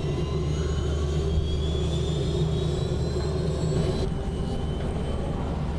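Robinson helicopter running on the ramp during its first startup test run after assembly: a steady low rumble, with a thin high whine that rises slowly in pitch for about four seconds and then drops away.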